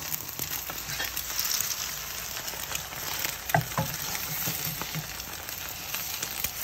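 Eggs sizzling as they fry in a frying pan, with a wooden spatula scraping and tapping against the pan as it cuts and turns them; the loudest scrape comes about halfway through.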